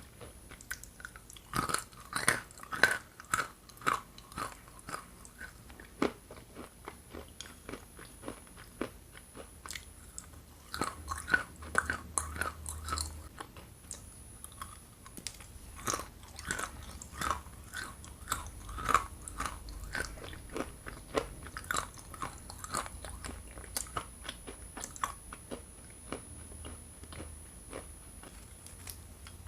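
Close-up biting and chewing of dry, hard chunks of Ural edible clay: sharp crunches and crackles in several bursts with short pauses between, thinning out over the last few seconds.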